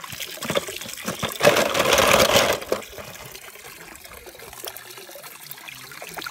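Water splashing and sloshing as a hand rummages in a shallow paddling pool, loudest from about one and a half to two and a half seconds in, then quieter trickling with small clicks.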